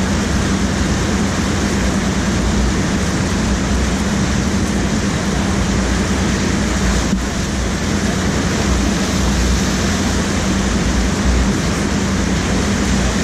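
Steady rush of churning water from an artificial standing surf wave, with a steady low hum beneath it.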